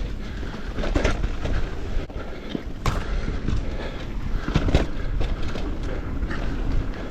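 Electric mountain bike riding fast down dirt singletrack: a steady rumble of tyres and wind on the microphone, with frequent knocks and rattles from the bike over bumps. The sharpest knocks come about a second in, around three seconds, and twice close together near five seconds.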